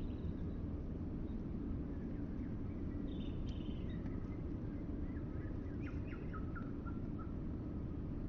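Small birds chirping and calling in short, scattered notes over a steady low rumble of outdoor background noise.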